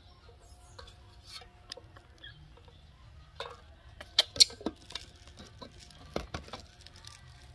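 Scattered clicks and taps of a plastic lid being handled and pressed onto a tin of milk formula, the sharpest cluster a little past the middle and another about six seconds in.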